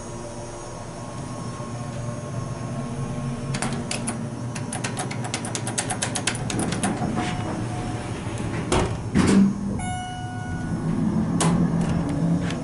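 2001 Schindler 300A hydraulic elevator: a run of rapid clicks and rattles, then the sliding doors shut with a thud about nine seconds in. A short electronic tone follows, then a low steady hum as the hydraulic pump unit starts the car moving.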